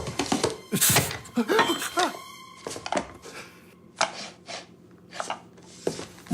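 A series of sharp knocks and thunks at irregular intervals in a small room, with a few brief squeaky pitched sounds in the first two seconds.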